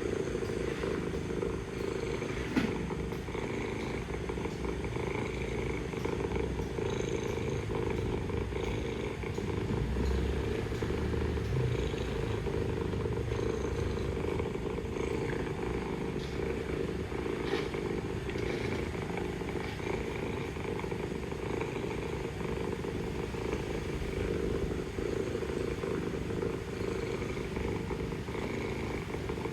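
Mother cat purring steadily, a continuous low pulsing rumble, with one short click about two and a half seconds in.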